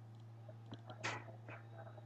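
Faint computer mouse clicks, a few scattered short ticks with the loudest about a second in, over a low steady hum.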